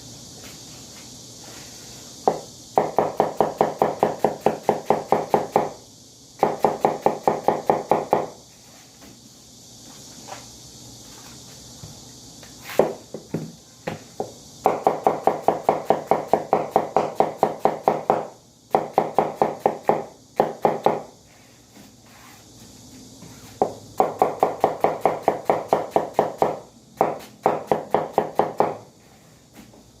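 Food-processing machine running in bursts of rapid, evenly spaced mechanical strokes, about five or six a second, each run lasting two to four seconds with short pauses and a few single knocks between.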